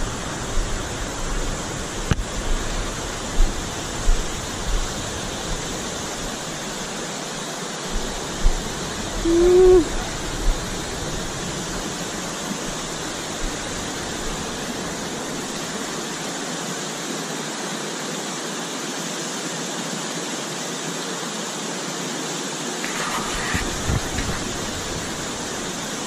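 Waterfall pouring with a strong current, a steady rushing hiss. A few brief thumps come in the first ten seconds.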